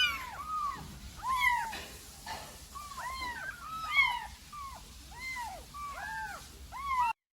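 Several young kittens mewing over and over: short, high-pitched cries that rise and fall, often overlapping one another. The sound cuts off suddenly near the end.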